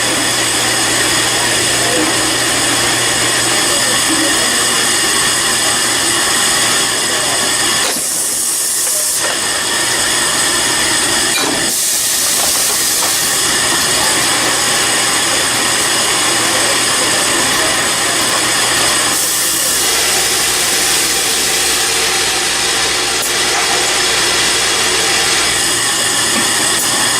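Production-line machinery running steadily, a loud hum with several steady tones, broken by three bursts of hissing, each a second or two long, about 8, 12 and 19 seconds in.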